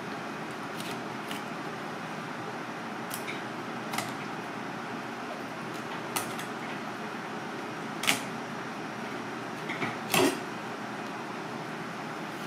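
Knife clicking and knocking against a plastic cutting board while filleting a large fish, a few sharp knocks spread over steady kitchen background noise; the loudest knock comes about ten seconds in.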